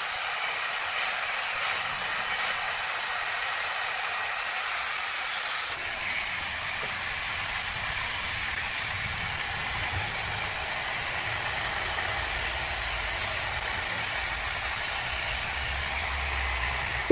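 Small air-powered spot polisher with a foam pad running steadily against car paint, with an even hiss of air, during paint correction of the scratched clear coat. It cuts off suddenly at the end.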